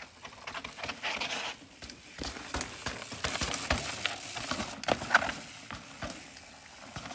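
Mountain bike rolling down a steep, loose trail: tyres on loose dirt and rock, with frequent sharp knocks and rattles from the bike over the bumps.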